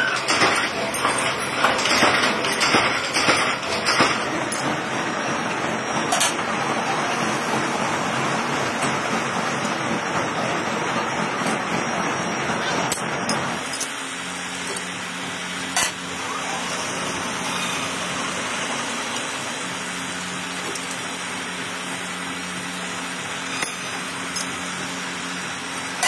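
Metal workshop machinery: dense clattering noise with many knocks, then, about halfway in, a steady two-tone machine hum with an occasional click of metal parts being handled.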